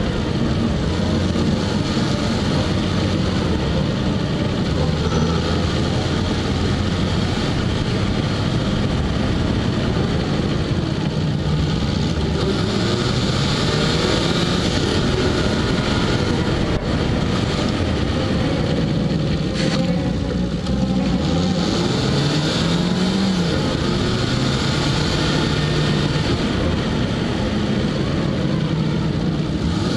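Peugeot 206 driving along a road, heard from a camera taped to its front bumper: a steady rush of tyre and wind noise over the engine. The engine note rises and falls a few times as the speed changes.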